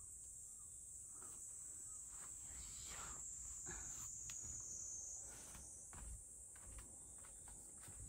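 Faint, steady high-pitched chirring of insects, with soft scattered thuds of a cat's paws padding over tatami and a rug.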